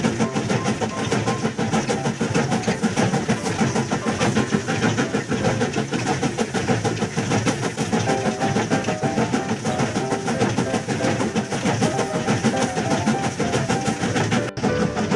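Battery-operated toy train engine running along a wooden railway track: a steady motor whir with the fast, even clatter of its wheels and cars.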